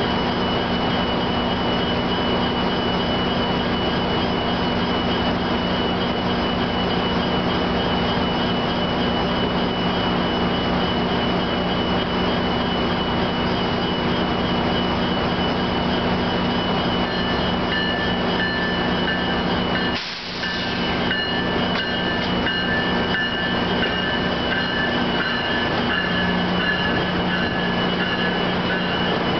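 Arriving GO Transit bilevel commuter train: a steady loud drone with a low hum runs throughout. From about two-thirds in, thin high squealing tones from the wheels join as the cars roll in alongside at low speed, with a brief drop in level just after.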